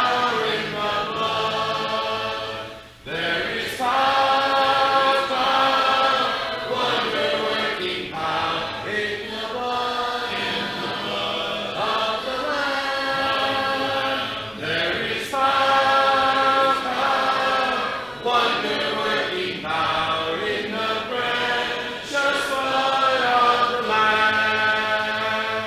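A church congregation singing a hymn a cappella, many voices together with no instruments, led by a song leader. The singing breaks briefly between lines about three seconds in, then carries on.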